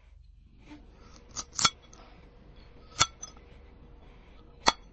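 Knife blade slicing through glass-like crystal food, the glass-cutting sound effect of a cutting ASMR clip: a handful of sharp, crisp clinks, a quick pair about a second and a half in and single ones about three seconds in and near the end, over a faint steady hum.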